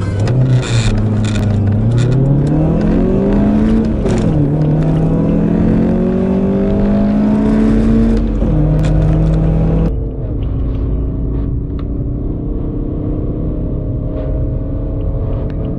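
Car engine under hard acceleration through the gears: the note climbs steadily, drops suddenly at a gear change about four seconds in, climbs again, and drops at another change about eight and a half seconds in. From about ten seconds a duller engine note rises only slowly.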